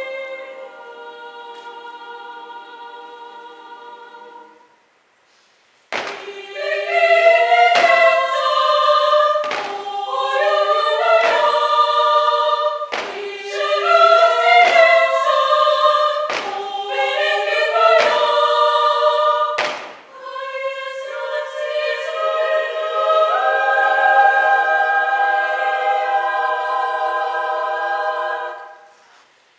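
Women's choir singing a cappella. A held chord fades out into a brief silence about five seconds in. The choir then comes in loudly with sharp, rhythmic accented attacks, and near the end settles into a long sustained chord that dies away.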